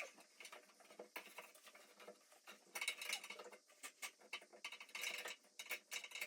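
Faint, irregular rustling and scratching of tissue paper wiped around the inside of a bathroom exhaust fan housing, with small clicks, busier about halfway through and again near the end.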